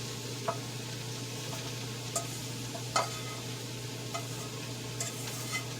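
Cabbage sizzling steadily in a pot over medium-low heat, with a low steady hum underneath and a few light clicks and taps of utensils against the pot.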